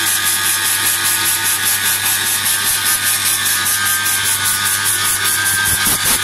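Artikon DG604 CNC router running, a steady high machine whine over a hiss that pulses evenly about five times a second.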